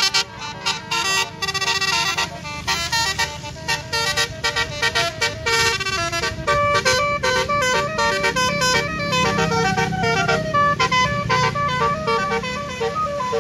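Bus 'telolet' basuri horn, a set of many electrically switched trumpets, playing a fast melody of short stepped notes. A low engine drone swells under it past the middle.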